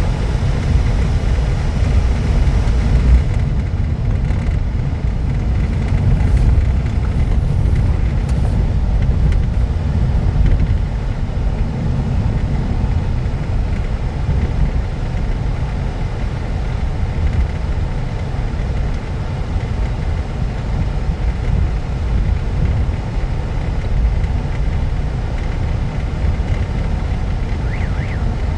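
Steady road noise inside a moving car's cabin: a low rumble from the tyres and engine.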